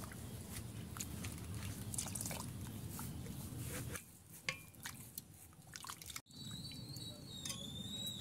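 Ladle gently stirring hot milk in a metal kadai, with soft liquid sloshing and light drips and clicks, as lemon juice is added to curdle the milk into chhana. A faint high whistle-like tone sounds near the end.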